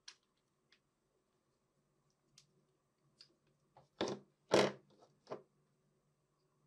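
Handling noise from a hand pin vise and a small plastic miniature part: a few faint clicks, then three or four louder scuffs and taps between about four and five and a half seconds in.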